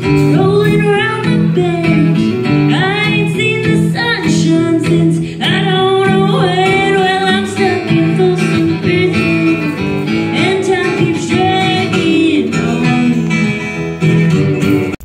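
Live band playing: a woman singing into a microphone over guitar accompaniment, with a steady low bass line.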